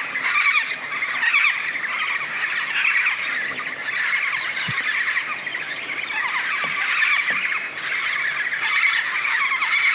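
A flock of pink cockatoos (Major Mitchell's cockatoos) calling, with many wavering, overlapping calls in a continuous chorus.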